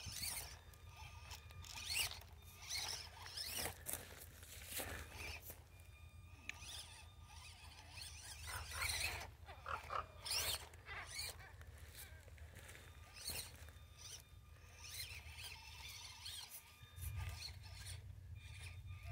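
Axial SCX24 Jeep Gladiator RC crawler's small electric motor and geartrain whining as it drives, with its tires crunching and scraping over loose gravel and rocks in irregular bursts.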